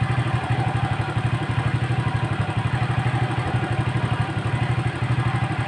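Underbone motorcycle engine idling steadily, with a fast, even beat that does not change.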